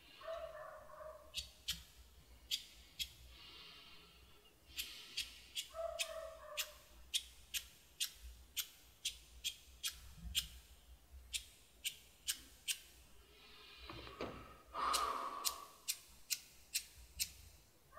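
A cigarette lighter being struck over and over, about two dozen irregular clicks, without catching. Three short moaning breaths from the man fall between them; the one about fifteen seconds in is the longest and loudest.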